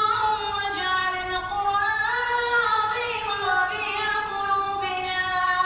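A high voice singing a slow melody without instruments, long held notes gliding from one pitch to the next.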